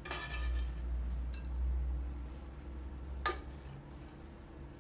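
A metal spoon scraping fried slivered almonds out of a frying pan onto a plate, with a single sharp clink about three seconds in, over a low steady hum.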